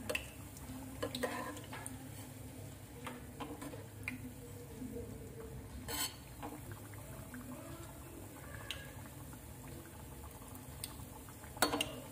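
Malpua frying gently in ghee in a steel pan, a low steady bubbling, while a steel slotted spoon stirs and spoons the hot ghee. The spoon knocks and clinks against the pan a few times, most clearly about six seconds in and again near the end.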